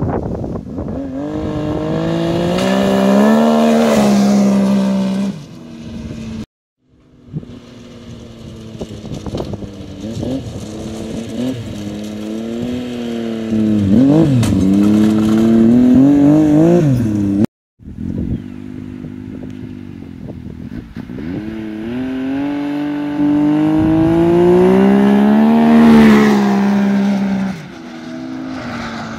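Turbocharged three-cylinder snowmobile engine (Arctic Cat 998 with a Turbo Dynamics muffler) accelerating and backing off in three separate runs, each cut off abruptly. In the first and last runs the pitch climbs steadily to a peak and then drops. In the middle run it rises and falls several times with the throttle. The tone is smooth and fairly high, without deep drone.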